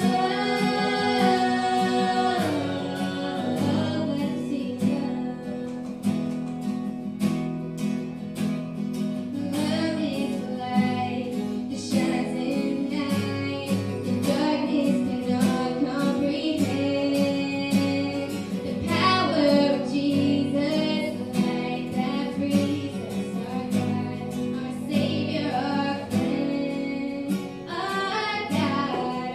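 A woman singing a song to strummed acoustic guitar, performed live.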